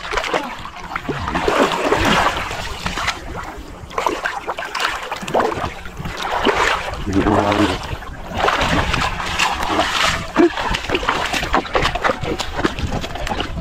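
Shallow muddy water splashing and sloshing irregularly around a person wading and moving in a tidal channel.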